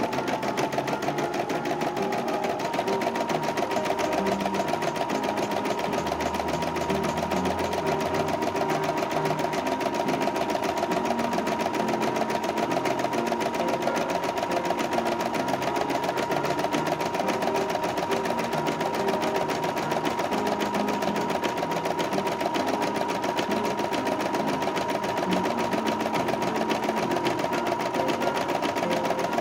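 CNY e960 portable computerized embroidery machine stitching at speed: a rapid, even chatter of needle strokes over a steady motor whine.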